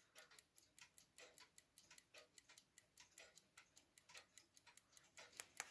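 Platform lever escapement of an Odo wall clock ticking faintly and quickly, about five ticks a second, running healthily. A slightly louder click comes near the end.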